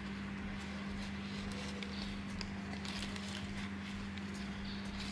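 Faint light taps and clicks of fingers handling a small cardboard lipstick box over tissue paper, scattered irregularly over a steady low hum.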